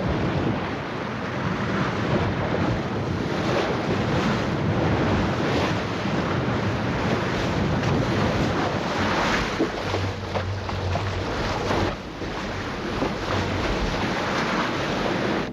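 Strong wind blowing over the microphone above the steady rush of waves as a ship runs through a rough sea, the noise swelling and easing. A low hum joins for a couple of seconds about ten seconds in.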